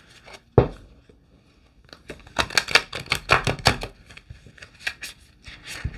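Tarot cards being shuffled by hand: a single snap about half a second in, then a quick, irregular run of card slaps and flutters from about two seconds on.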